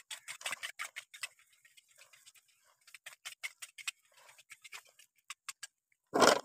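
Fishing reel clicking irregularly as a hooked fish is reeled in, with a louder rasping burst near the end.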